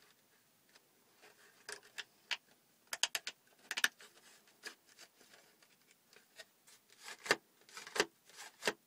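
Irregular clicks and taps of a homemade cardboard toy pistol being handled and its parts fitted together, with a quick cluster of clicks a few seconds in and three heavier knocks near the end.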